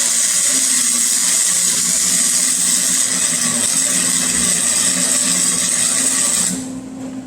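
Forney Easy Weld flux-core welder's arc frying steadily as an exhaust pipe is tacked to the muffler. It cuts off suddenly near the end.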